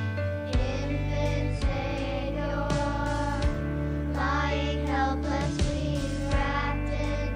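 Music: a slow piece with held bass notes under a wavering melody.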